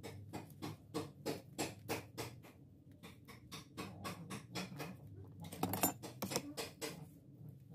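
Quick scratchy rubbing and scraping strokes, a few a second, from hand work on a shoe's sole and upper. A louder, longer scrape comes a little after the middle.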